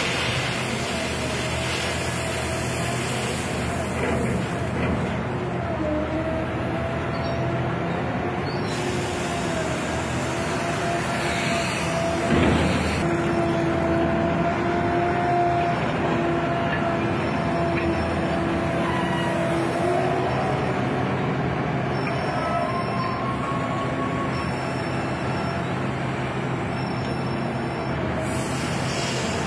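Hydraulic material-handling excavator with a clamshell grab running steadily, its engine and hydraulics giving a wavering whine as it swings and works the grab. About twelve seconds in there is a louder crunch as the grab bites into the crushed stone in the hold.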